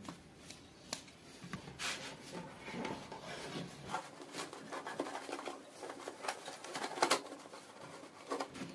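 Faint, irregular clicks and scrapes of hands working on a motorcycle's air intake: a screwdriver turning the screw of a metal hose clamp, then the rubber intake hose being handled and pushed into place.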